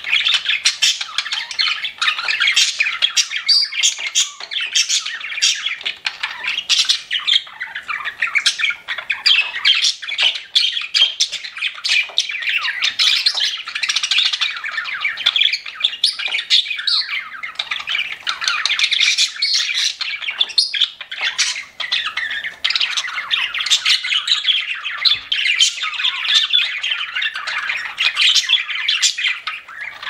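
A group of budgerigars chattering, a dense, unbroken stream of many quick overlapping chirps and warbles.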